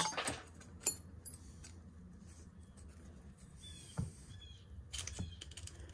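Small metal tool clicking and scraping against a pocketknife as it is pried at the handle pin, a handful of sharp clicks spread through, with a few faint squeaks near the middle.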